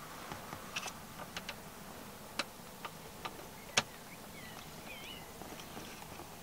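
Irregular light clicks and knocks of the car seat's parts and bolts being handled and worked into place, the loudest a sharp knock a little under four seconds in.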